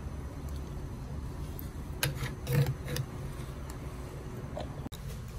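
Metal forks and spoons clinking and scraping against hammered aluminium bowls and tray, a handful of sharp clinks about two to three seconds in, over a steady low hum of room noise.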